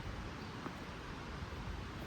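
Steady rushing outdoor noise, with a faint click about two-thirds of a second in.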